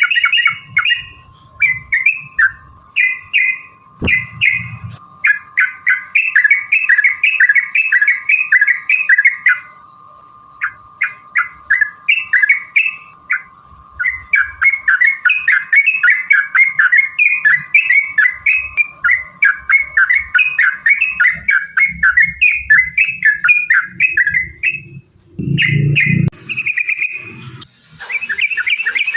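Yellow-vented bulbul (trucukan) singing long, rapid runs of chattering notes, broken by short pauses. A faint steady hum stops about two-thirds of the way through, and a low thud sounds near the end.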